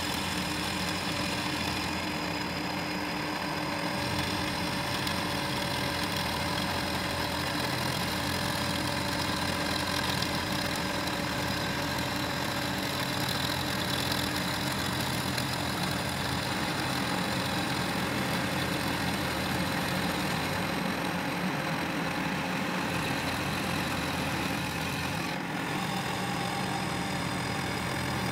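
Milling machine running, its spindle turning an end mill that cuts along the bottom side of a metal wheel-carrier bracket clamped in a vise. The sound is a steady machine hum with a few sustained high tones over it.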